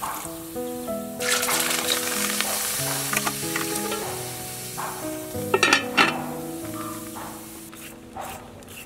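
A large aluminium pot of pork rib soup coming to the boil, its liquid hissing and bubbling, under background music with a melody of held notes. A cluster of sharp clicks comes a little past halfway.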